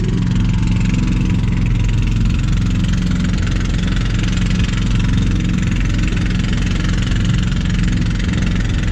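Engine of a motorized outrigger boat (bangka) running steadily under way, a constant low drone with the hiss of water rushing past the hull.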